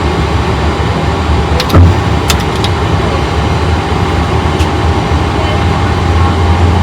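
Jet airliner engines running, heard inside the cockpit during engine start: a steady low hum and hiss, with a thump and a few sharp clicks about two seconds in.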